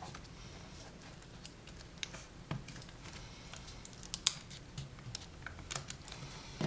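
Scattered light plastic clicks and taps from laptop display parts being handled and pressed into place, with one sharper click a little past four seconds in.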